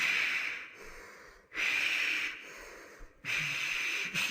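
Steam locomotive exhaust chuffing slowly: three heavy, hissing puffs about a second and a half apart, the engine labouring as it pushes a stalled train.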